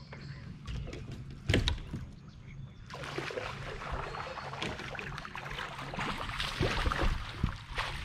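Kayak on moving water: a sharp knock against the hull about a second and a half in, then a steady rush of water with scattered knocks and splashes.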